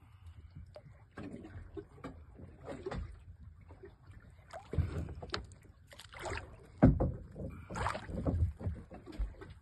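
Water splashing and sloshing against the side of a small fishing boat as a large fish is held alongside, with irregular knocks and thumps; the loudest is a sharp knock about seven seconds in.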